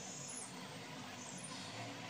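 Faint steady background noise with no distinct event.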